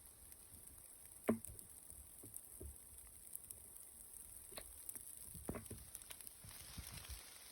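Faint, scattered raindrops dripping onto surfaces, with one louder drop a little over a second in.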